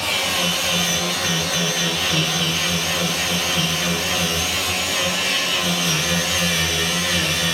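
Background music, steady throughout.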